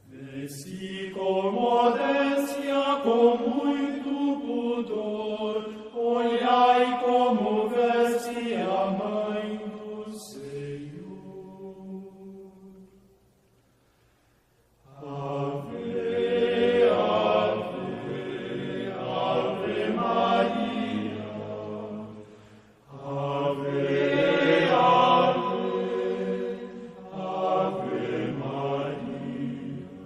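Voices singing a devotional hymn in slow, chant-like phrases, with a short silent pause about halfway through.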